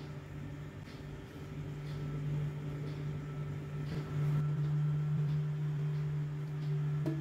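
A steady low hum, like a running motor or appliance.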